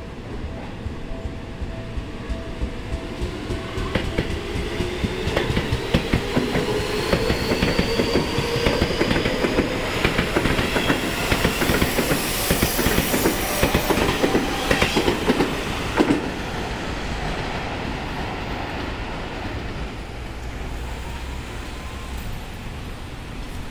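Seibu 30000 series electric train pulling out and speeding up: its motor whine rises steadily in pitch, and the wheel clicks over the rail joints come quicker and quicker as the cars pass. It is loudest about twelve to sixteen seconds in, then drops away.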